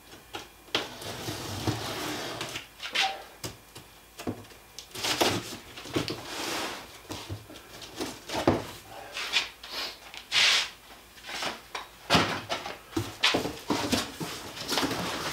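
Cardboard box being opened: a knife slitting the packing tape, then the box and its flaps being handled, giving an irregular string of scrapes, short tearing hisses and cardboard knocks.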